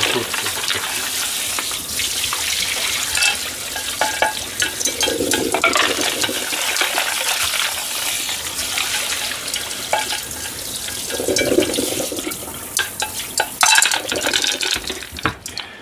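Kitchen tap running into a saucepan of whelks in a stainless steel sink, the water splashing over the shells as they are rinsed, with occasional light clinks of shells and a wire strainer against the pan.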